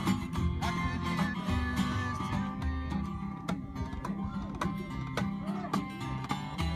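Live folk band playing an instrumental passage: strummed acoustic guitar, plucked upright double bass and a hand drum beaten in a steady rhythm, with no singing.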